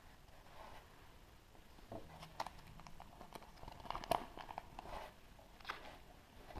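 A chocolate surprise egg being opened by hand: scattered crinkles, clicks and small cracks of foil, chocolate shell and plastic capsule, with a sharper crack about four seconds in.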